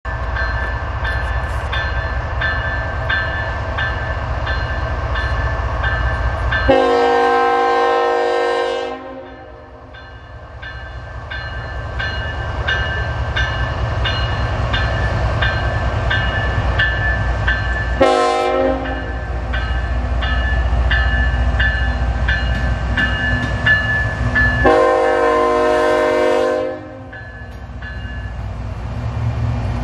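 Canadian National freight locomotive air horn sounding for a grade crossing: a long blast, a short blast, then another long blast. Under it a crossing bell rings steadily and the approaching diesel locomotives rumble low.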